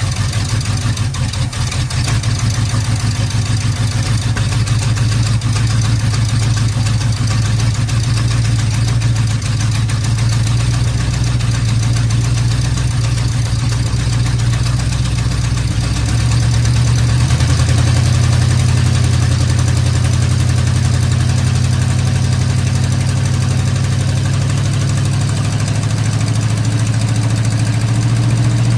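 1979 Ford F350's 400M small-block V8 idling steadily, getting a little louder about two-thirds of the way through.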